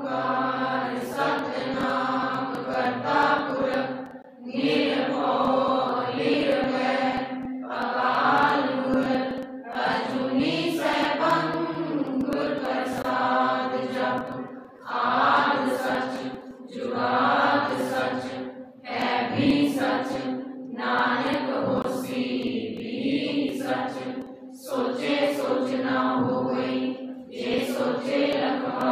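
A devotional prayer song sung by voices in a chant-like style, played back from a video through loudspeakers, in phrases of two to three seconds with short breaks between them over a steady low drone.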